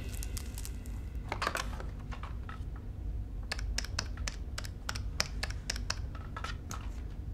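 Keypad buttons of a desk telephone pressed one after another to dial, about a dozen quick light clicks, after a short clatter of handling about a second and a half in as the handset is picked up.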